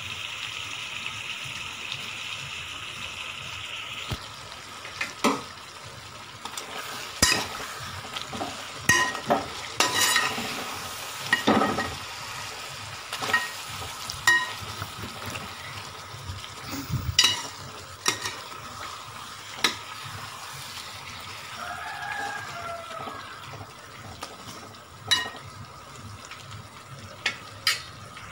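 Chicken, onion and tomato frying in coconut oil in a metal pot. A steady sizzle fills the first four seconds, then gives way to a quieter frying hiss under scattered sharp clinks and scrapes of a spoon stirring against the pot.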